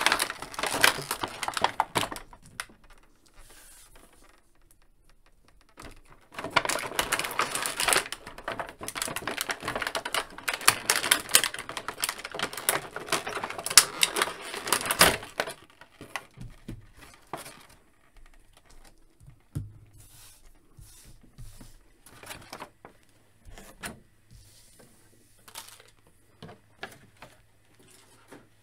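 Thin clear plastic packaging crinkling and crackling as it is handled, in two long spells, the second lasting about nine seconds. After that come scattered light clicks and taps.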